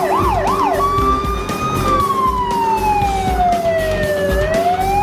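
Fire-truck siren sound: a fast up-and-down warble of about three cycles a second, changing about a second in to a slow wail that falls over a few seconds and rises again near the end.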